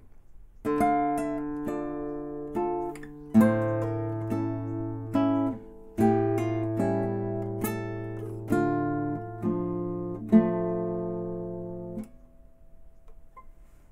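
Classical nylon-string guitar playing a short passage of chords and single notes with descending slurs, plucked with flesh and nail rest strokes just below the soundhole toward the bridge for a slightly metallic tone. The last chord rings out and fades about twelve seconds in.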